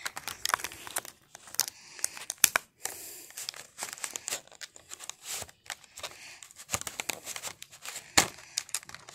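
Clear plastic toy packaging crinkling and rustling as it is handled and pulled apart, with irregular sharp crackles.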